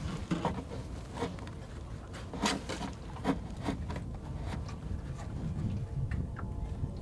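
Hands working tent guylines and a plastic stake against wooden dock boards: scattered clicks, light knocks and rubbing over a low steady rumble.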